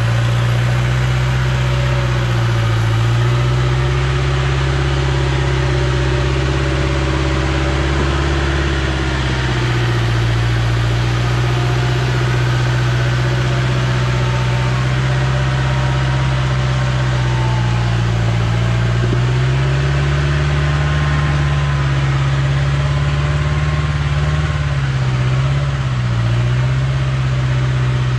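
A lifted off-road 4x4 pickup's engine runs steadily while the truck crawls up a steep mud slope. Its note rises and falls slowly with the throttle.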